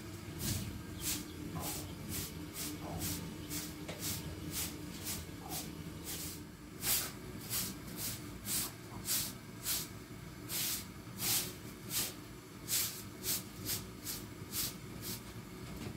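Short straw broom sweeping a concrete floor in brisk, even strokes of about two a second, each one a dry swish. The strokes are soft at first and grow louder about halfway through.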